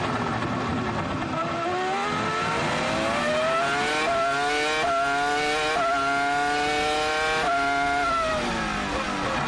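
BMW V10 engine of a 2004 Williams FW26 Formula 1 car heard onboard. It climbs in pitch out of a slow corner and steps up through four quick gear changes, then drops in pitch near the end as the car brakes and downshifts.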